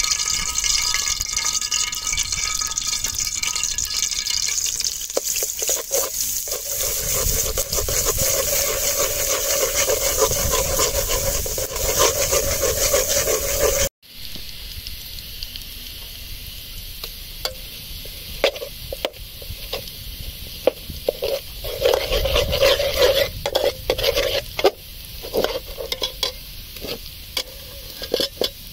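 Oil sizzling in a metal pot as chopped ingredients fry, louder in the first half. In the second half a metal spatula stirs and scrapes against the pot, giving repeated sharp clicks over the sizzle.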